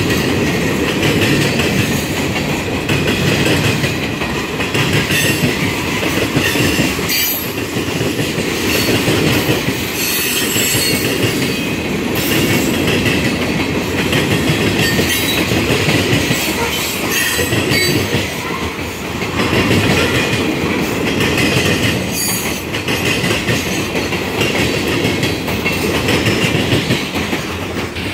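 Freight cars of a long train rolling past, their wheels clacking and banging over a railroad diamond crossing in an irregular run of impacts over a steady rumble.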